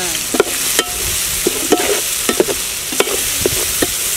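Chopped vegetables sizzling in hot oil in a large metal pot while a perforated metal skimmer stirs them. The skimmer knocks and scrapes against the pot about twice a second over the steady sizzle.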